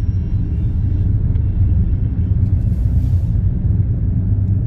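Steady low rumble of a moving car's engine and tyres on the road, heard from inside the cabin, with a brief hiss a little past halfway through.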